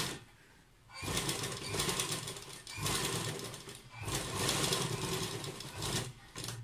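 Sewing machine stitching piping onto a garment's neckline in four short runs. The first run starts about a second in, and the others follow after brief stops as the fabric is guided around the curve.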